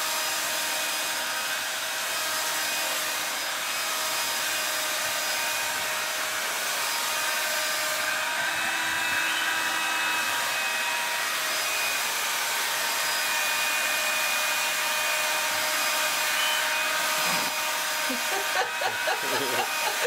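Handheld cordless vacuum cleaner running steadily, a hiss with a steady motor whine, as its nozzle is drawn through a long-haired cat's fur.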